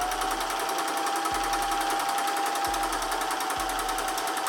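Janome Sewist 500 sewing machine stitching fabric at a steady speed: an even motor whine over a fast, regular clatter of the needle.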